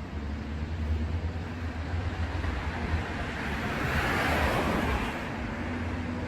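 Passing road vehicle: a steady low rumble with a rushing noise that swells and fades about four seconds in.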